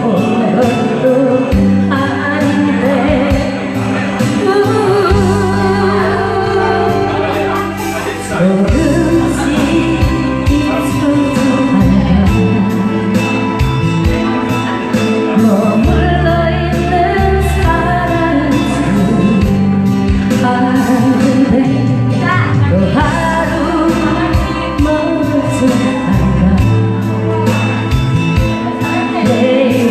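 A pop or trot song with a steady drum beat and bass line, a voice singing over it.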